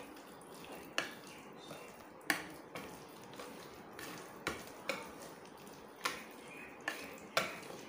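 Wire whisk stirring a thick omelette batter full of diced potato and tomato in a plastic bowl: a soft, wet squishing, broken by a sharp click every second or so as the whisk knocks against the bowl.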